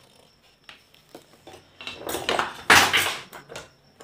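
Plastic top cover of an induction cooktop being handled, lifted off and set down on a workbench: a few light clicks, then a louder scraping clatter about two seconds in that lasts about a second.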